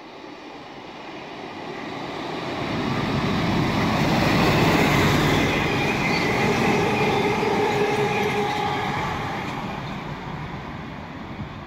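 A DRS Class 57/3 diesel locomotive, with its EMD two-stroke engine, runs through hauling a train of freight wagons. The sound builds to a loud rumble as the locomotive passes, with a steady whine over the loudest part. It then fades as the wagons roll on past.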